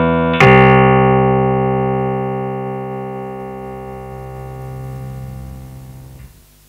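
Yamaha PSR-F51 portable keyboard playing a piano voice, recorded straight from its line output: a chord struck about half a second in rings on and slowly fades for several seconds, then cuts off sharply when the keys are released near the end, leaving a faint hum.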